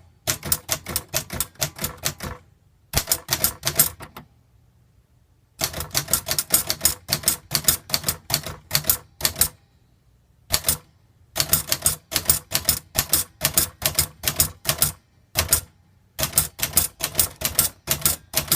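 Royal Aristocrat manual portable typewriter being typed on: runs of quick, sharp key strikes, several a second, broken by short pauses of up to about a second and a half.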